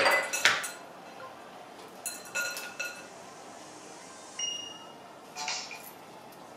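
Kitchen dishes and glassware clinking on a countertop: a handful of light, separate clinks, some leaving a brief high ringing tone.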